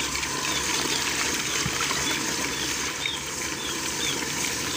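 Water pumped up a PVC pipe gushing out and splashing down into a plastic filter drum, a steady rush. The float switch has just started the pump to refill the filter.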